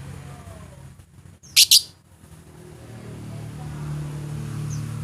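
Lovebird giving two sharp, high chirps in quick succession about a second and a half in, over a steady low hum.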